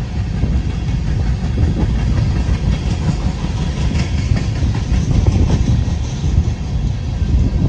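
Freight train of coal hopper cars rolling past: steel wheels on rail making a steady low rumble, with scattered clicks and clacks as the wheels pass over the track.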